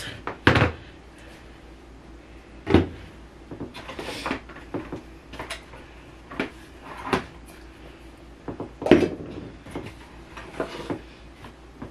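Plastic cleaning bottles and containers being handled and set down, with knocks against the wooden under-sink cabinet: a handful of separate clunks, the loudest about half a second in, near three seconds and near nine seconds.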